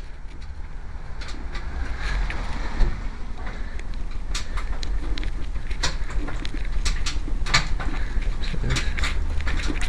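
Direct Bikes Thunderbird DB125-9's 156FMI 125 cc single-cylinder four-stroke engine running steadily, with scattered sharp clicks over it.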